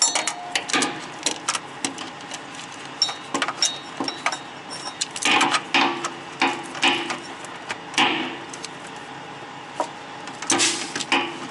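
Irregular metal clinks, knocks and scrapes of a ratchet and wrench being fitted onto the bolts of a truck's cab shock absorber.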